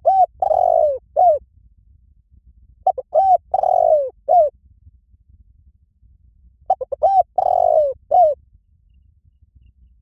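Spotted dove cooing in three phrases, about three and a half seconds apart. Each phrase is a couple of quick short notes, a long drawn-out coo, and one short note to close.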